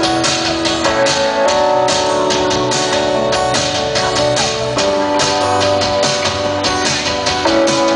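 Band playing an instrumental passage of a song: guitars holding chords that change every second or so over a steady drum beat.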